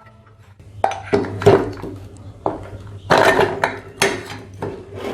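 Metal ceiling fan parts knocking and clinking together as they are handled: a string of sharp clanks with a short ring after each, starting about a second in.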